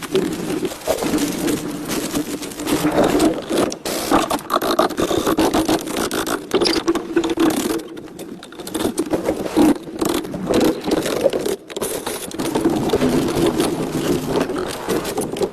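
Continuous rough scraping with many short, irregular knocks and clicks.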